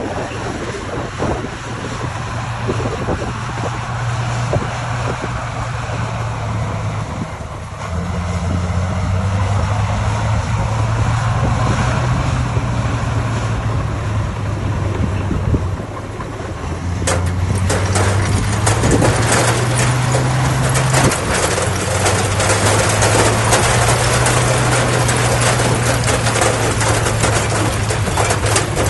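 Diesel engine of heavy earthmoving machinery running under load, its pitch shifting now and then. About 17 seconds in, a louder rough noise joins it.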